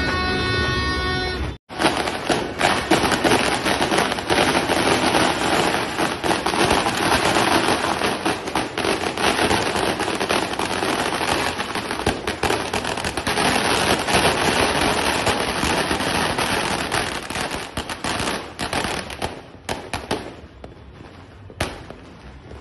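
A long string of firecrackers going off in a rapid, continuous crackle of sharp pops, thinning to a few scattered pops near the end.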